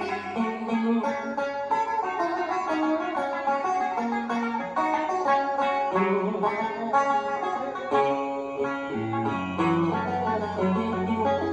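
Instrumental music: a plucked-string melody of quick, changing notes over a steady bass line.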